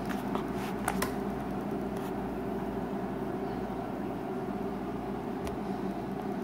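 A steady low hum, like a fan or appliance running in a small room, with a few faint clicks near the start and once more later on.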